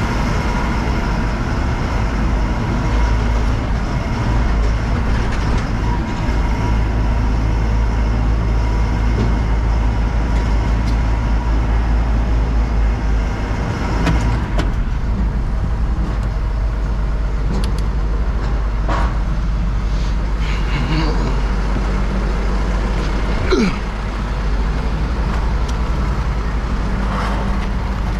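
Backhoe's diesel engine running steadily with a deep rumble and a constant whine. A few short clicks and knocks occur over it, the sharpest about three-quarters of the way through.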